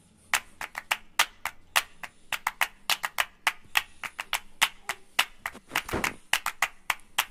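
Rapid, irregular sharp clicks and taps, several a second, from hands working dough on a silicone pastry mat, with one duller knock about six seconds in.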